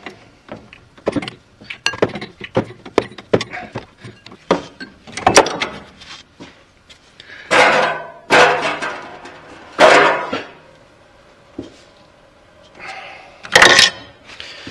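Hand tools clinking and knocking on the metal fittings of a power steering pump, then several short splashing rushes of power steering fluid spilling from the disconnected pressure line into a pan.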